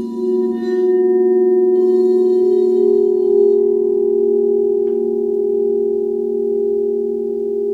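Crystal singing bowls ringing in long sustained tones, several pitches sounding together, swelling slightly around the middle.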